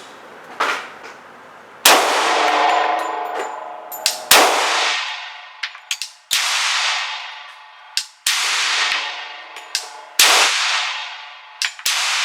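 Glock 40 10mm pistol fired slowly, five shots about two seconds apart. Each shot hangs in a long metallic ringing tail. Fainter, shorter cracks fall between them.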